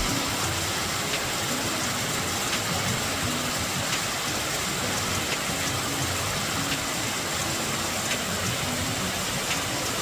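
Steady rush of water from a small waterfall pouring over rocks.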